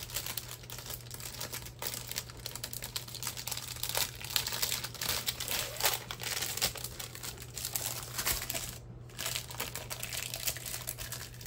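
Plastic wrapping crinkling and rustling as a rolled diamond painting canvas is handled and packed away, busiest a little after the middle, with a brief pause near the end.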